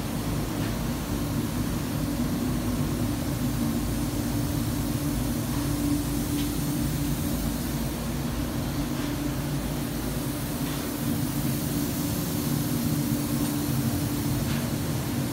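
Steady low hum and airy rush of a paint booth's ventilation fans running, with a few faint ticks.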